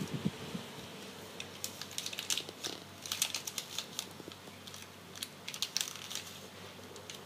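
Small, sturdy plastic snack sachet crinkling and crackling as a toddler's hands twist and pull at it, trying to tear it open; the packet resists tearing. The crackles come in irregular clusters, thickest a couple of seconds in and again about five seconds in.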